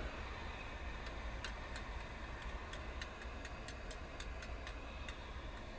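Light, fast ticking of about four to five clicks a second that starts about a second and a half in, over a steady low hum.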